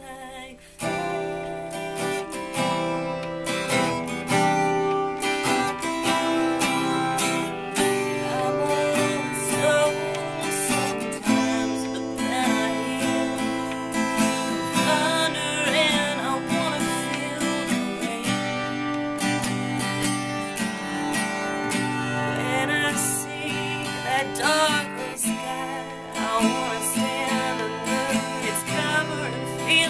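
Acoustic guitar strummed and picked while a woman sings, starting about a second in. This is a singer-songwriter's studio performance as picked up by a Flip Mino HD pocket camcorder's built-in microphone.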